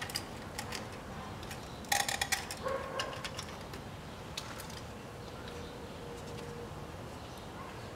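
A few sharp metallic clinks and rattles about two seconds in, some with a brief ringing note, as metal parts and tools are handled around a stripped-down engine; otherwise faint background.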